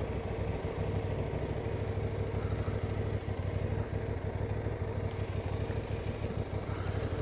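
Honda Transalp adventure motorcycle engine running steadily at low revs.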